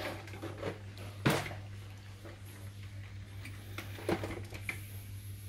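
Quiet room tone with a steady low hum, broken by a sharp click about a second in and a softer one about four seconds in.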